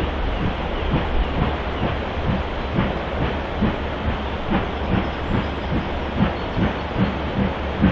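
Steam locomotive working hard, its exhaust beating in a steady rhythm of about two to three chuffs a second over a constant low rumble.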